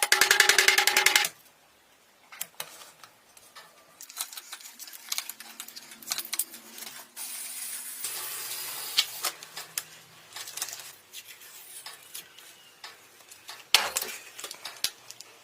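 Rapid filing or rasping strokes on metal that stop about a second in. Then scattered small metallic clicks, taps and rubbing as tool parts are handled, with a longer scraping or rubbing stretch in the middle.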